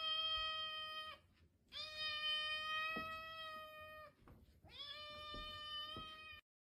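A cat giving long, drawn-out meows, three in a row, each held at a steady pitch for about two seconds with short pauses between.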